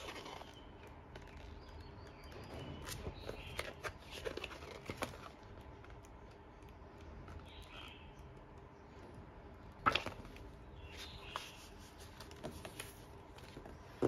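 Glossy pages of a K-pop album photobook being turned and handled: soft paper rustles and small clicks, with one louder tap about ten seconds in.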